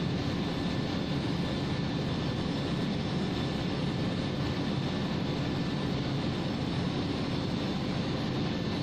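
Oxy-acetylene torch flame burning with a steady, even rushing sound as it heats a copper pipe joined to a brass fitting for silver brazing.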